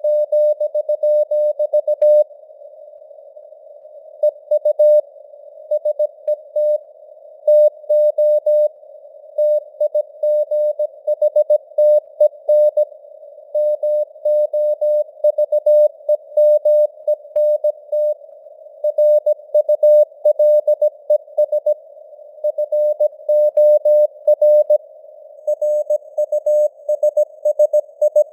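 Simulated CW radio signal: a single mid-pitched Morse code tone keyed on and off in dots and dashes at 17 words per minute, spelling out news text. A faint hiss of simulated radio noise sits around the tone between the characters.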